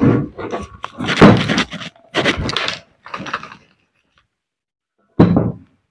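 Knocks and clatter of a demolition hammer's metal housing and parts being handled and set against a workbench: several short, loud thunks in the first few seconds, then a pause and one more short knock near the end.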